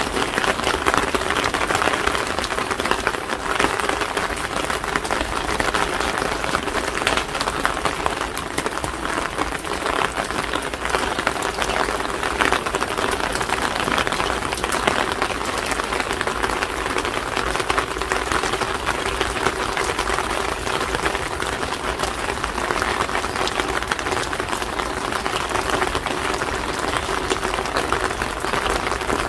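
Steady rain falling, a dense patter of drops hitting hard surfaces.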